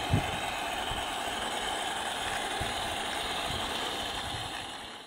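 Battery-powered model locomotive and its coaches running along 45mm gauge garden railway track: a steady running noise with a few brief low thumps, fading out at the very end.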